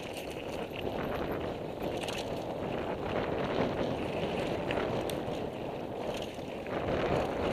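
Wind rushing over the microphone of a camera on a mountain biker descending a dry dirt singletrack, with the tyres rolling over the dirt and a few short clicks and knocks from the bike.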